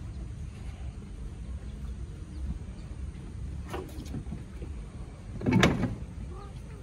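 Light knocks and then a louder thump, close to six seconds in, as a Bengal cat climbs onto a blue plastic drum, over a steady low rumble.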